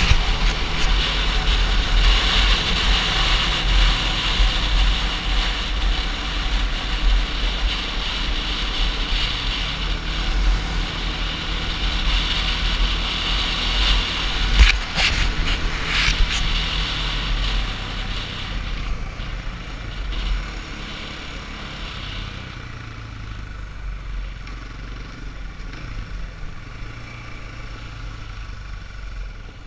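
ATV engine running under way with wind rushing over the microphone, the engine pitch stepping up and down as the rider works the throttle. A couple of sharp knocks come about halfway through, and in the last third the engine settles to a quieter, low run as the ride slows.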